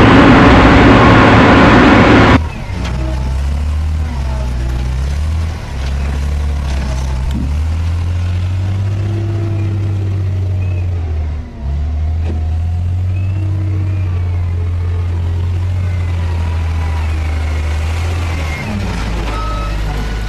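Loud rushing wind and road noise from a moving vehicle, cut off abruptly about two seconds in. It gives way to a John Deere 444 wheel loader's diesel engine running with a low steady drone that steps up and down in pitch and dips briefly around the middle.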